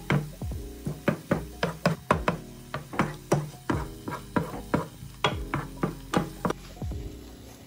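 Wooden spoon knocking and scraping against a nonstick frying pan while stirring eggs and tomatoes: a quick, uneven run of sharp knocks, about three or four a second, over soft background music.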